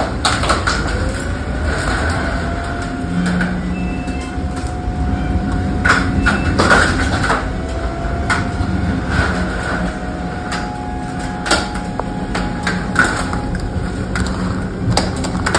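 Strong storm wind buffeting a vehicle: a steady low rumble, a whistle that glides up about a second in and comes back around eight seconds, and scattered knocks.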